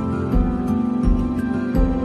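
Background music: a soft instrumental passage with sustained chords over a slow, steady low beat.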